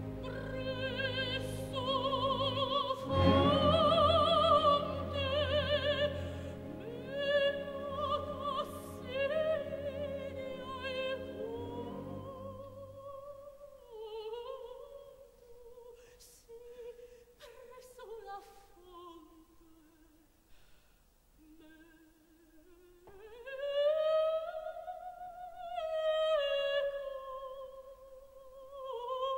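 Coloratura soprano singing an operatic mad scene with wide vibrato over sustained orchestral chords. About 13 seconds in, the orchestra falls away and the voice carries on softly, almost alone, in falling and rising phrases, swelling louder again near the end.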